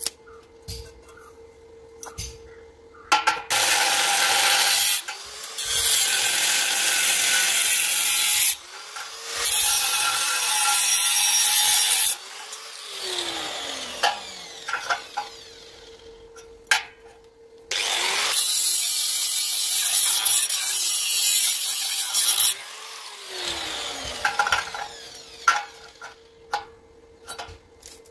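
Angle grinder with an abrasive cut-off disc cutting square steel tube, in several loud passes of a few seconds each. The motor winds down with a falling whine after the cuts, about 13 seconds in and again near 23 seconds. Sharp metal knocks near the end.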